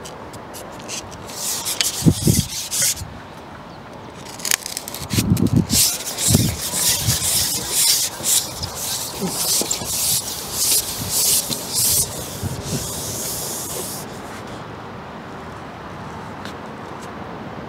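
A Preston Innovations Response XS90 carbon fishing pole being slid out and handled: bouts of rubbing and scraping as the pole sections move through the hands and over the platform, with a couple of dull knocks. The scraping dies down for the last few seconds.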